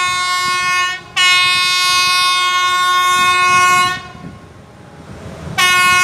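Air horn of an approaching Alsthom diesel-electric locomotive sounding in blasts: one cuts off about a second in, a long blast of about three seconds follows, and another begins near the end. A low rumble lies between the blasts.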